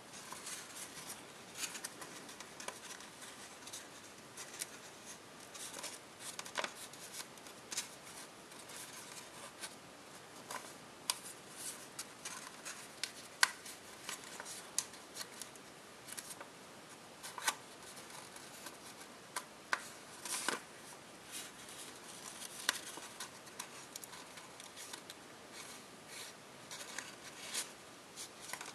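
Copper tissue foil crinkling and rustling as it is folded and creased by hand: an irregular run of small sharp crackles, with a few louder snaps.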